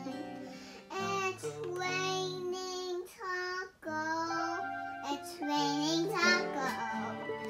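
Cat-shaped toy electronic keyboard (B. toys Meowsic) played by a toddler: electronic notes held and changing every half second or so, with short breaks about a second in and near four seconds. A small child's voice sings along.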